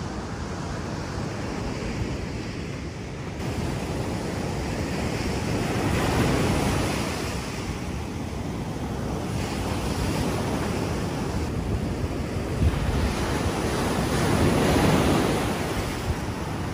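Ocean surf breaking and washing up the sand, swelling twice, with wind buffeting the microphone.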